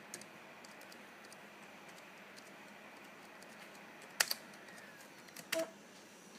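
Keys being typed on a Dell Latitude C640 laptop keyboard: faint, scattered key clicks with one sharper press about four seconds in, then a brief tone near the end.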